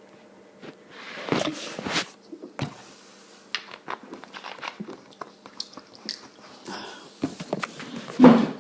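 Close mouth noises: a string of short clicks and smacks, growing more frequent after a few seconds, with a louder, lower sound near the end.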